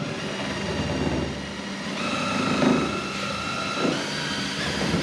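Power drill with a paddle mixer stirring two-part boat coating in a bucket: a steady motor whine with mixing noise, its pitch stepping up about two seconds in.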